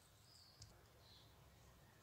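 Near silence: room tone, with one faint click about half a second in.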